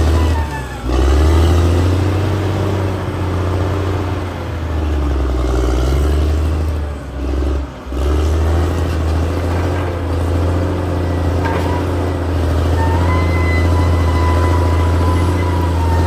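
Caterpillar D6R XL bulldozer's diesel engine running steadily as the machine works, with brief dips in level about a second in and again around seven to eight seconds in. A thin high whine is heard at the start and again from about thirteen seconds in.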